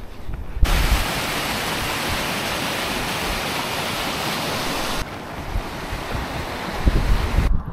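River water rushing over a low weir: a steady, loud roar that starts suddenly about half a second in and cuts off at about five seconds. Then wind buffets the microphone in low gusts, with the water fainter behind it.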